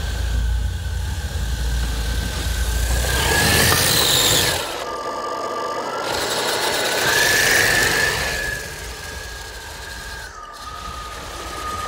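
Custom electric RC tracked truck with brushless Tekin ROC412 motors whining as it drives, the pitch rising and falling with the throttle. Twice the whine climbs as louder scraping and rushing from the tracks and plow pushing snow swells up, the second surge about seven seconds in, then it drops back.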